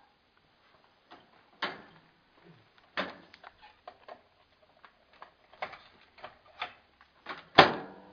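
Irregular sharp clicks and knocks, a few a second, ending in one loud knock near the end, like a glass flask and a lightbulb being set in place and a microwave oven door being shut.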